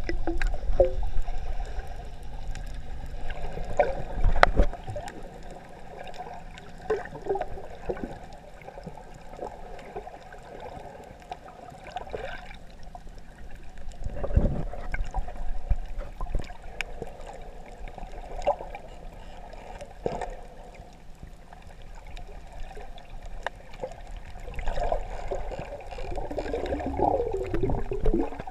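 Water heard through a GoPro held just under the surface: muffled sloshing and gurgling, broken by occasional knocks.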